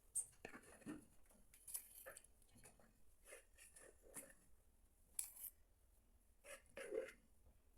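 Faint, scattered scrapes and soft knocks of hands and a utensil handling soft, sticky bread dough and moving it into a greased baking pan.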